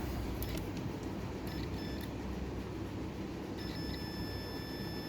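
Electronic beeps from a digital multimeter: a short pair about a second and a half in, then one long steady beep from about three and a half seconds on, over a low steady rumble.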